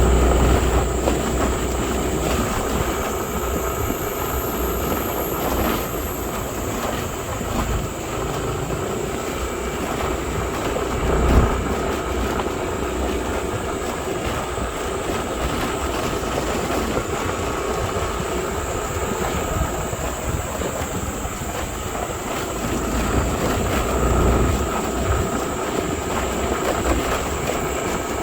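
Steady rumbling running noise, like a vehicle on the move, with a constant high hiss over it and one brief louder knock about eleven seconds in.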